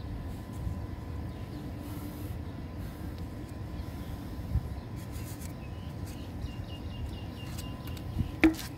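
Steady low outdoor rumble with faint clicks and taps as PVC pipe fittings are handled, and one sharp knock of plastic near the end.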